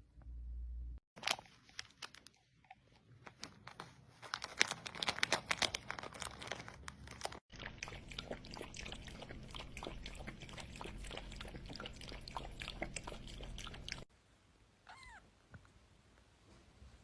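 A pet chewing with rapid, crisp crunches, broken by a short gap about seven seconds in. Then it goes quieter, with one brief falling call about fifteen seconds in.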